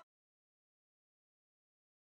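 Silence: the soundtrack is blank.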